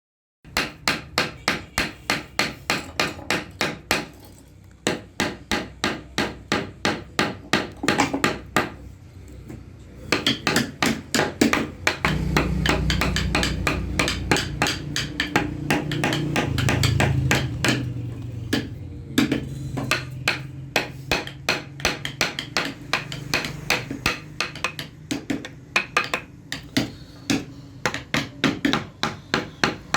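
Mallet striking a carving chisel into wood in quick, even runs of about four blows a second, broken by short pauses. A low steady hum sits under the strikes for several seconds around the middle.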